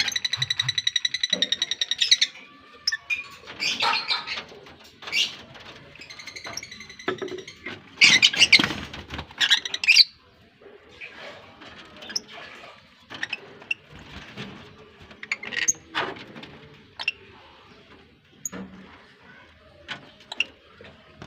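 A colony of lovebirds chattering with shrill chirps and calls. It opens with a rapid buzzing trill for about two seconds, has a loud cluster of calls about eight seconds in, then carries on with sparser sharp chirps.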